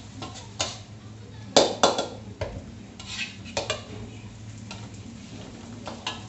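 Metal spatula scraping and clanking against a wok as fried flat rice noodles (kwetiau) are stir-fried. The clanks come irregularly, the loudest a little over a second and a half in.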